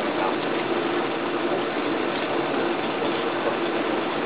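Charcoal-fired mini kiln burning hard: a steady roar with a constant hum underneath.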